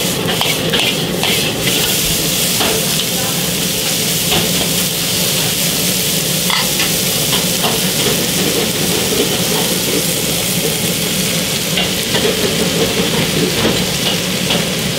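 Bean sprouts sizzling in a hot iron wok over a gas flame while a metal ladle stirs and tosses them, with a few light clicks of the ladle against the wok.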